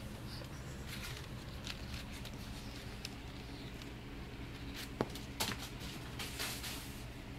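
Crinkling and light clicks of a crumpled paper ball being handled and thrown, then a sharp tap about five seconds in and a flurry of scratchy taps as the ball lands and a cat scrambles after it across the tile floor, over a steady low hum.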